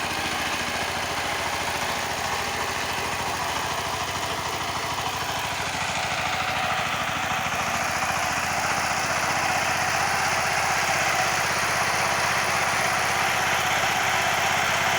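Tractor engine running steadily, growing a little louder about halfway through.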